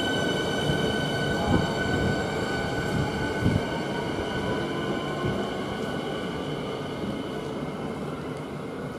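Siemens Nexas electric train moving at the station. Its traction equipment whines in several steady high tones, and a fainter tone rises in pitch as the train gathers speed, over the rumble of the wheels. There are a few knocks in the first half, and the whole sound slowly fades.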